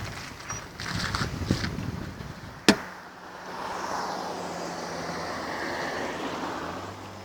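Toyota Vios moving off: knocks and rustling with a brief faint high squeak, then a sharp click about two and a half seconds in. After the click a steady low engine hum runs under noise that swells.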